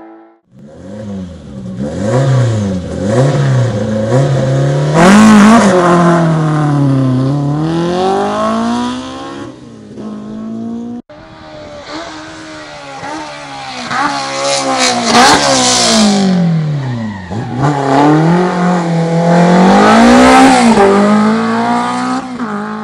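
Rally car engines at full throttle on a tarmac stage, revving hard, the pitch climbing and dropping sharply as the driver shifts gears and lifts for corners. An abrupt cut about halfway through leads to another car's pass.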